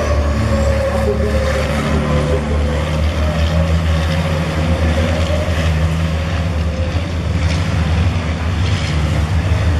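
Diesel race trucks running at racing speed on a circuit: a steady, loud low engine drone from a pack of trucks going past.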